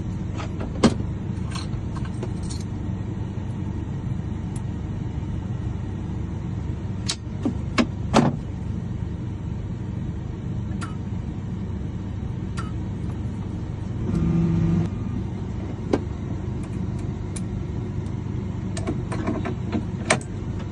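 Steady low rumble of a vehicle running, with scattered sharp clicks and a jingle of keys. A short low buzz sounds about two-thirds of the way through.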